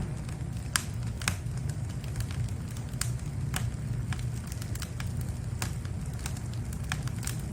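Oak firewood burning, with irregular sharp crackles and pops over a steady low rumble.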